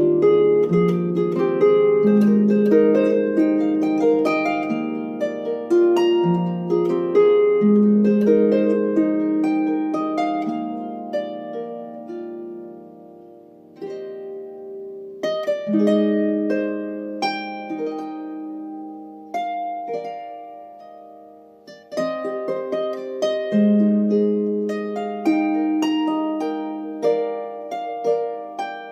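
Solo Dusty Strings harp playing plucked melody notes over ringing bass notes, its strings slightly out of tune by the player's own account. The playing pauses briefly twice between phrases.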